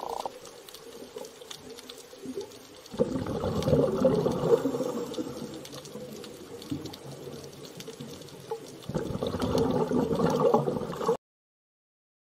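Underwater bubbling and gurgling water sound, swelling louder about three seconds in and again near the end, then cutting off suddenly.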